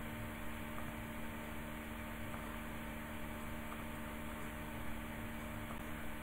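Steady low electrical hum with a faint even hiss: the background noise of the recording, with no speech.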